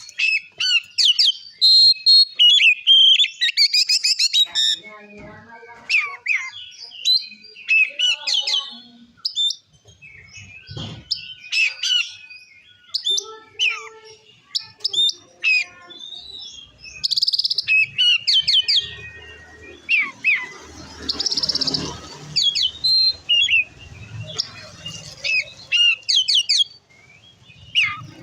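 Oriental magpie-robin (kacer) singing loudly in a long run of varied, quick whistles, chirps and trills. A rushing noise with a low rumble sits under the song for several seconds from about twenty seconds in.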